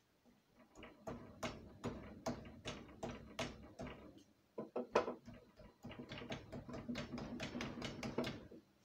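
Rapid, irregular clicks, taps and scraping of small metal compressor parts being handled, as a high-pressure sealing ring is worked into place on the Air Venturi compressor's piston stage.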